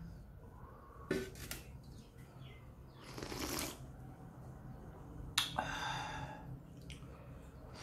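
A man slurping instant noodles off a metal plate, in three short noisy bursts a second or two apart. The first burst opens with a sharp click.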